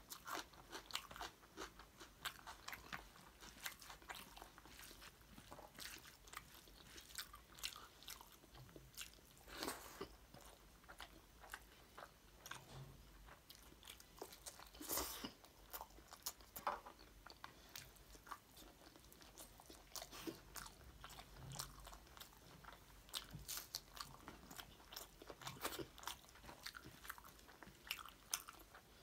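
A person eating rice with chicken curry and egg curry by hand: chewing and mouth sounds, with the hand working the rice on the plate. Many short clicks run throughout.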